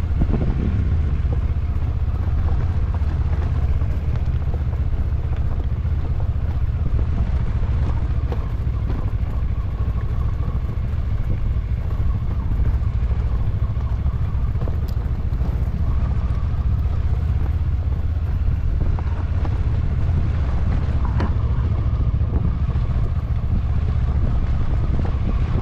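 Motor vehicle driving at a steady pace: engine and road noise holding a constant low pitch and level throughout.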